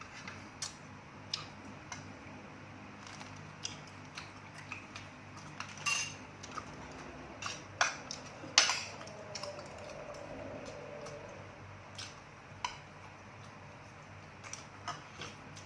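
Utensils clinking against dishes: scattered light clicks and clinks, the loudest a little past halfway, over a faint steady hum.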